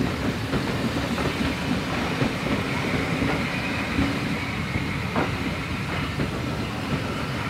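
Train running along the track: a steady rumble of wheels on rails with a few light knocks, and a faint high wheel squeal through the middle.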